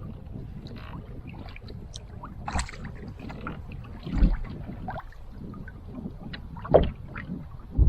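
Paddle strokes in the water from a pack canoe, a splash every second or two, over a low rumble of wind on the microphone.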